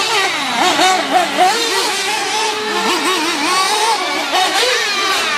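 Several petrol RC race car engines, small two-strokes, revving up and down together as the cars race around the track, their pitch wavering quickly and constantly.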